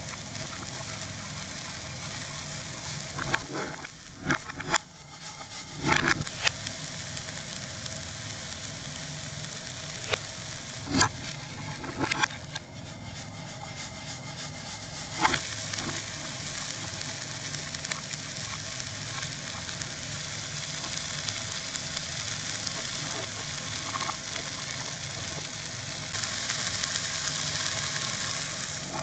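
Vegetables sizzling in a frying pan, a steady hiss broken by a dozen or so sharp knocks of a utensil against the pan; the audio runs in reverse. The hiss grows louder near the end.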